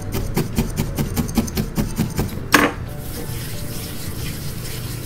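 Felting needle stabbing repeatedly into a wool ball on a bristle felting mat, about five quick pokes a second. The pokes stop about halfway through with one louder scrape.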